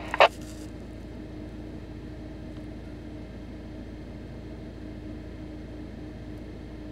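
A received FM transmission from the ISS ends on a Yaesu FTM-350 mobile transceiver, with a short burst of hiss as the squelch closes. After that only a low steady hum remains in the car.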